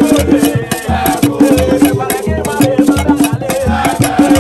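Upbeat African popular music with a steady beat: deep bass pulses about twice a second under quick, rattling shaker-like percussion.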